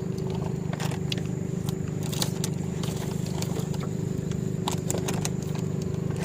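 Dry wood being broken and picked apart, a scattered series of cracks and scrapes, over a steady low mechanical hum.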